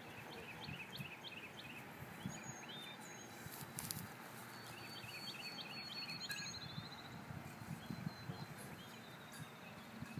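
Faint outdoor ambience: a small bird chirping in quick runs of short high notes near the start and again about halfway, over soft tapping and rustling steps in the grass.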